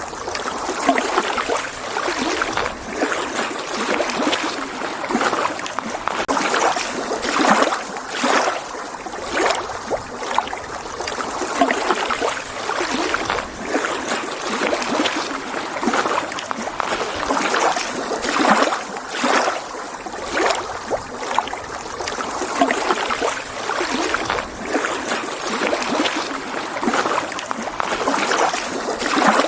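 Small lake waves lapping and splashing against the shore in quick, irregular surges.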